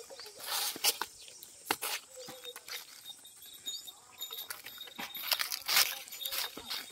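Footsteps crunching over dry fallen leaves and brittle ground, with an uneven run of crackles that is loudest near the start and again about five to six seconds in. Small birds chirp faintly in the background.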